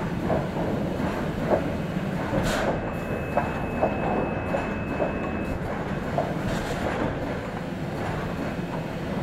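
Automated lumber stacking and unstacking line running: a steady machine hum with frequent knocks and clatter of boards on the conveyors and gantry. A thin steady whine sounds for a few seconds near the middle, and two short hisses come about two and a half and six and a half seconds in.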